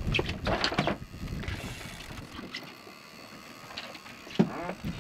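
Spinning fishing reel being cranked in short spells as the angler pumps the rod against a big jack crevalle on heavy drag, over a low rumble. There is one sharp knock about four seconds in.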